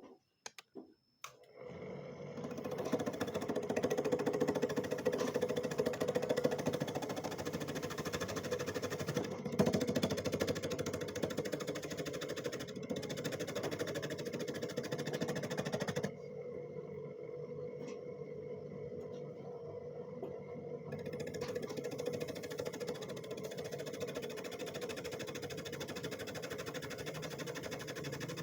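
A carang mas machine, a shredder for the sweet-potato snack, starts up about two seconds in and runs with a steady mechanical noise. Its sound turns duller for a few seconds past the middle, then sharpens again.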